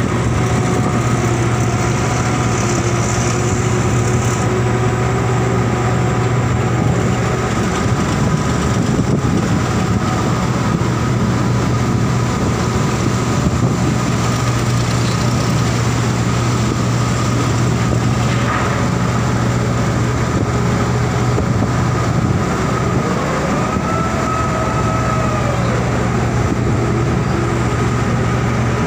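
Grab crane's engine and winches running steadily: a deep hum with whining tones over it. One whine rises and then falls again about three-quarters of the way through.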